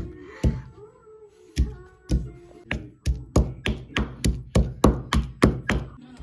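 Stone pestle pounding ginger in a stone mortar: a few spaced thuds, then a steady run of strikes at about three a second from about halfway through.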